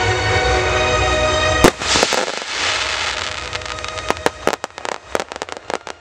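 Aerial fireworks over music: music with sustained chords, then one loud shell burst about a second and a half in, followed by a hiss. In the second half comes a quick irregular run of sharp crackling pops from bursting crackle stars, with the music fainter behind.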